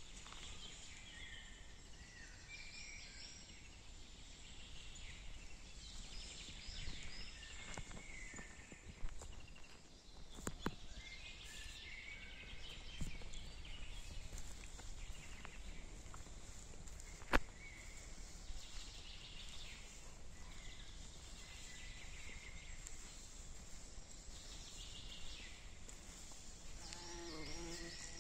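Forest ambience with small songbirds chirping over and over, and a few sharp clicks, the loudest about seventeen seconds in.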